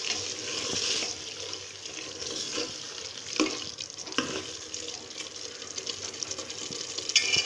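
Metal spoon stirring spinach and mutton in an aluminium pressure cooker over the flame: a steady wet sizzle with scraping, and a few sharp clinks of the spoon against the pot, one ringing briefly near the end.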